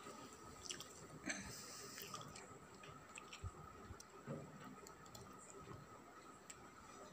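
Faint, irregular small clicks and crunches of a cat chewing, over a faint steady whine.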